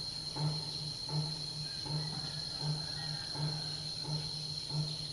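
Steady insect drone on a single high tone, with a distant Buddhist temple drum beaten at an even pace, a low boomy stroke about every three-quarters of a second.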